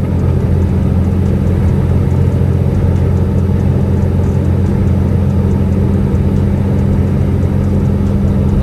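Semi truck's diesel engine running steadily at cruise, heard from inside the cab over a constant rushing road noise.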